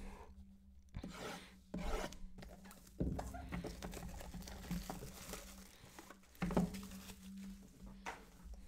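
Plastic shrink wrap being peeled, crinkled and rubbed off a small cardboard trading-card box, with a few light knocks as the box is handled and set down. The loudest knock comes past the middle.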